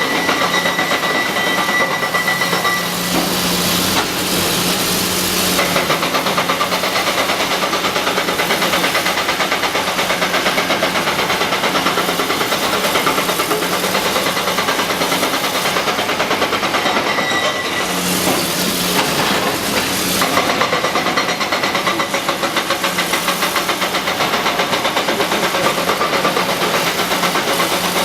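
Caterpillar 321C excavator's diesel engine running steadily under working load. Its note swells twice, about four seconds in and again around eighteen to twenty seconds, as the machine works.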